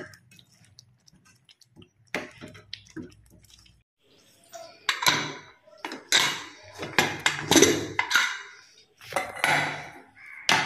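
An aluminium pressure cooker is being opened: its whistle weight is lifted off and the lid is worked loose, giving a run of loud metal clatters and scrapes in the second half. Before that there are a few soft taps of a ladle in a pan.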